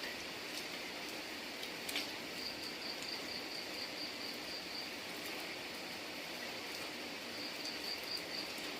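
Steady rain hiss with scattered sharp drip clicks, the loudest about two seconds in. A high, rapidly pulsed insect trill comes in twice, first for about two seconds and again near the end.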